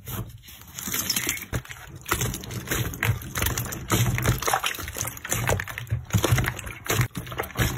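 Glossy blue slime squeezed and pressed by hand, giving a dense, irregular run of wet clicks, pops and squelches.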